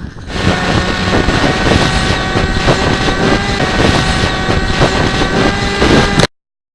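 RC model plane's motor running with a steady high whine, picked up by a camera on the plane, with heavy wind rush over the microphone. It cuts off suddenly near the end.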